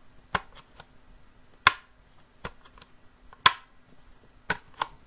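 Snap latches of a 3D-printed plastic photo frame clicking as the back panel is pressed into place: about nine sharp, separate clicks at uneven intervals, a few loud among fainter ticks. A really satisfying click, the sign of a latch that now fits well.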